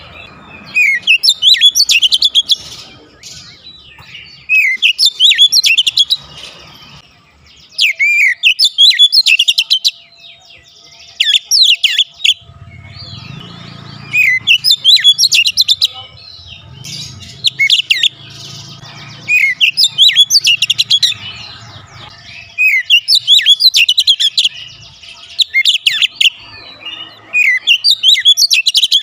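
Oriental magpie-robin (kacer) singing loudly: about ten bursts of rapid, varied whistled and chattering phrases, each one to two seconds long, with short pauses between.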